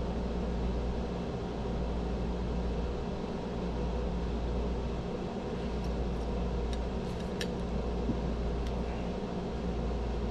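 Steady low mechanical hum, like a fan running, with a few faint clicks in the second half.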